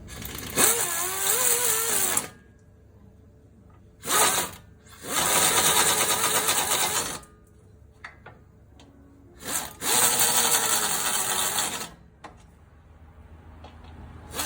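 A handheld power tool run in four bursts of one to two seconds, one of them short, with a wavering whine under the rattle of the tool.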